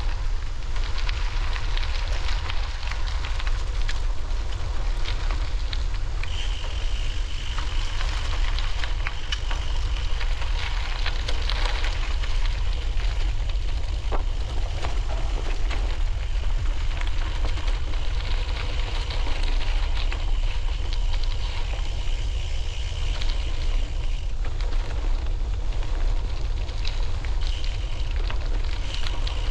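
Wind buffeting the microphone: a steady low rumble with constant fine crackling. A thin, steady high tone comes in about six seconds in and drops out a few seconds before the end.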